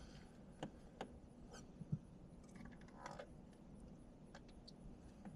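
Near silence with a few faint, scattered clicks and light taps, and one short low knock about two seconds in.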